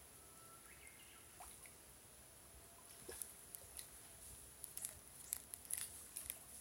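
Near silence: a few faint chirps in the first second or so, then a scatter of faint clicks and taps through the second half.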